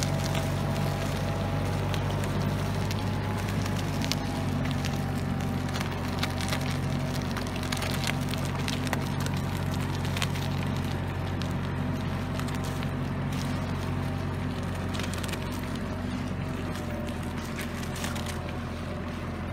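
Quad bike (ATV) engine running steadily under load as it drags a large log over muddy ground, with scattered crackles and snaps of wood. The engine gets a little quieter toward the end as it pulls away.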